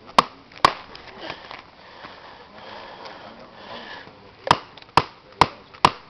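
Hammer striking a hard-packed gravel road surface stabilized with DirtGlue polymer: two sharp blows in the first second, then four more about half a second apart near the end. The strikes test the hardened surface, which they leave without even a dent.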